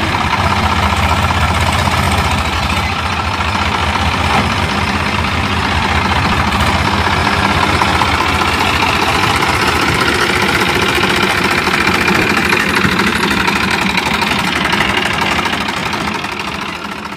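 Sonalika DI-750 III tractor's diesel engine running steadily at low revs as the tractor and trailer move off. The sound fades out near the end.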